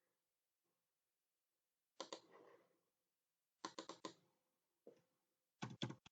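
Computer keyboard keystrokes and mouse clicks, faint, in a few short bursts of quick clicks, typical of entering dimension values.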